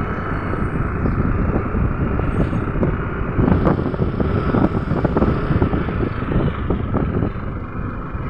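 Yamaha motor scooter being ridden at low speed: engine running with wind noise buffeting the microphone.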